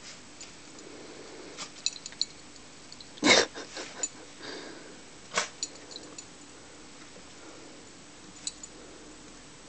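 Two small dogs, a black poodle-type dog and a Yorkshire terrier, nose around a ball in snow, making a few short sharp noises. The loudest comes about three seconds in and another just past the middle.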